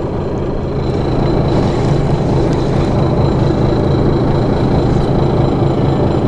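Fishing boat's engine running steadily, a low hum with a faint steady high tone over it.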